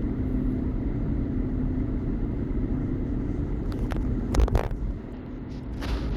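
Car driving, heard from inside the cabin: a steady low road rumble with an engine hum, and a few sharp knocks about two-thirds through, the loudest a thump.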